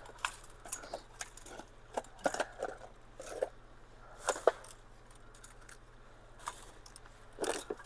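Litter being picked up and handled: scattered short crackles and clicks, a second or so apart.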